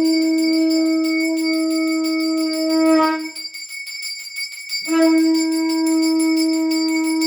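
A conch shell (shankha) blown for a puja in two long steady notes, with a pause of about a second and a half between them around the middle. Under the notes, a small brass hand bell rings continuously.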